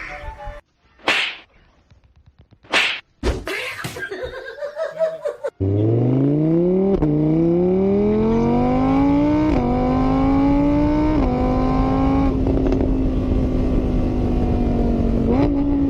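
A few short sharp knocks, then a car engine accelerating hard. Its pitch climbs steadily and drops back three times as it shifts up through the gears, then holds fairly steady near the end.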